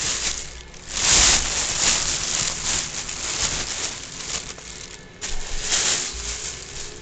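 Plastic shopping bag rustling and crinkling in uneven swells as a box is pulled out of it.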